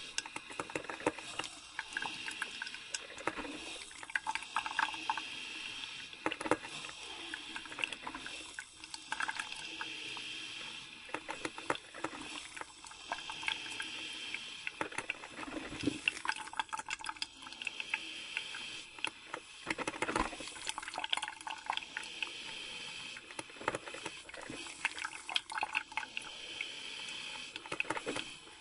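Coffee brewer brewing: water running through it with irregular pops and crackles over a steady hiss.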